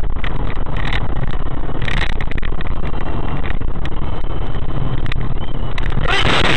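Loud, steady vehicle rumble recorded on a low-quality car camera, with scattered short knocks and clicks. It cuts to rock music about six seconds in.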